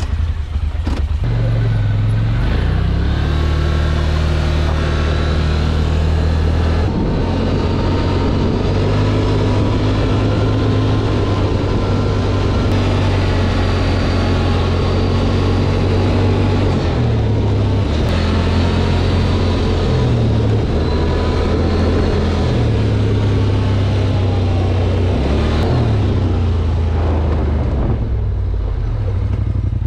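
ATV engine pulling away and running under way, its note stepping up and down again and again as the throttle opens and closes.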